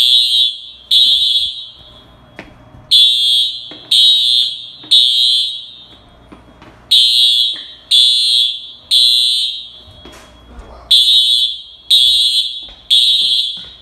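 Dormitory fire alarm horns sounding the temporal-three evacuation signal: three loud, high-pitched blasts about a second apart, then a short pause, repeating.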